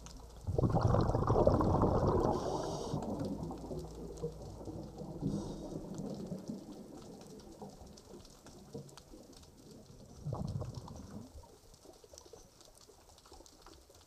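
Underwater bubbling and gurgling in two bursts. A loud one starts about half a second in and fades over several seconds, and a shorter one comes about ten seconds in.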